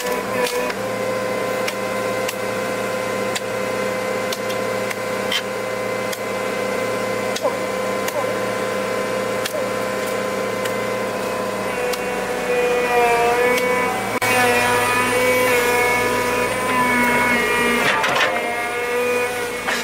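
A motor running steadily with a constant whine, with scattered clicks; from about two-thirds of the way in it gets louder and its pitch wavers, as if under changing load.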